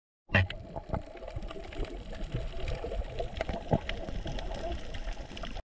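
Underwater ambient sound recorded alongside a drifting jellyfish: a muffled low rumble of water with many irregular sharp clicks and crackles. It cuts in suddenly and cuts off just as suddenly.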